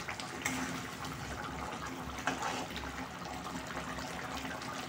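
Thick curry gravy bubbling as it simmers in a pan, with a spatula stirring through it at the start.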